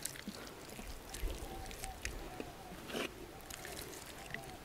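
Wet squelching and light smacks of hands rubbing thick masala paste over a raw whole chicken. The loudest smack is about three seconds in, and faint short calls repeat in the background.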